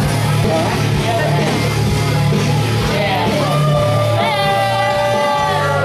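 Loud rock entrance music with singing and a steady heavy bass; a long held note comes in a little past halfway.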